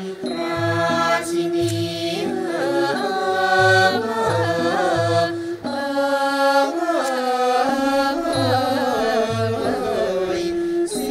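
Thai classical music: a group of women singing a slow, bending melody together over a Thai classical ensemble, with a low drum beating steadily about twice a second.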